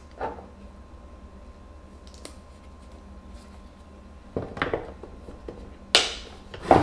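Clear plastic airtight food container being handled: small scattered clicks and rustles, then a couple of sharp plastic clicks near the end as its lid is pressed down onto the container.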